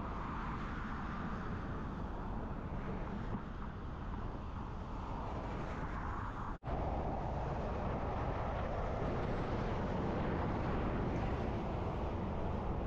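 Ram 2500 pickup truck on the move: a steady rush of road and wind noise. It drops out for an instant about six and a half seconds in.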